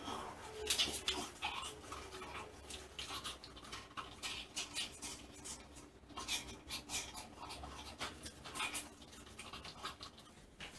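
Staffordshire Bull Terrier snuffling with its nose in the plastic hopper of an iFetch automatic ball launcher, making short, irregular bursts of breath noise.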